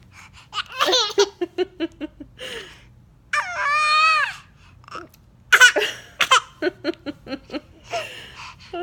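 High-pitched laughter in quick rhythmic bursts, with one long squeal in the middle.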